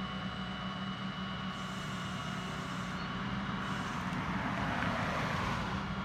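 Flatbed tow truck's engine running steadily. A car drives past about four seconds in, its tyre and engine noise swelling and fading.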